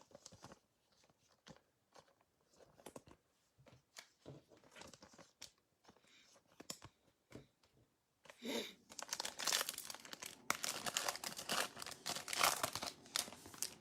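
Faint clicks and taps of trading cards being handled, then from about eight seconds in a sustained crinkling and tearing as a card pack wrapper is torn open and crumpled.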